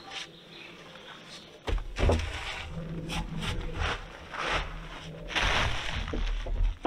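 A long peeled wooden pole laid onto a roof of other poles: two heavy wood-on-wood thunks about two seconds in, then scraping and knocking as it is shifted into place. Near the end a plastic tarp rustles as it is pulled.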